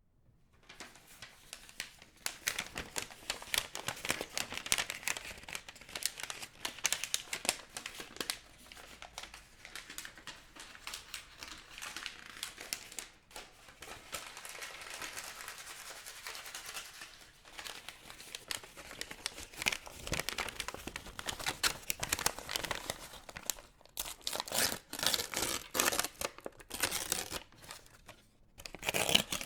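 Something being crumpled and crinkled by hand: dense rapid crackling that goes on and on, with a few short breaks about halfway through and near the end.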